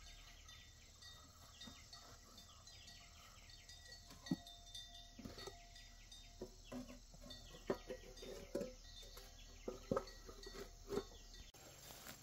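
Metal cooking pots knocking and clinking together as they are handled and stacked, a string of sharp knocks with short ringing in the middle of the stretch. Insects chirp faintly and steadily behind it.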